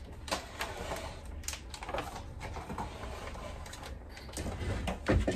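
Handling noise from a small TV and its cables being pushed aside on a kitchen counter: a run of light plastic clicks, rattles and knocks, with a couple of heavier thumps near the end.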